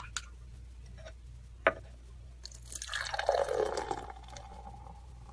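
Beer being poured into a glass: a single click, then about two seconds of splashing, pouring liquid that leaves a faint steady tone as it dies away.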